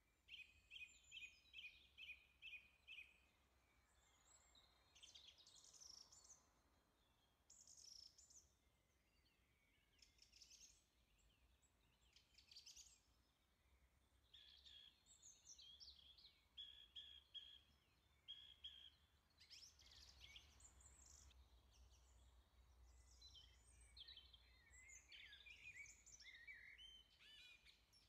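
Faint birdsong over near silence: a quick run of repeated chirps near the start, then scattered whistled calls and trills.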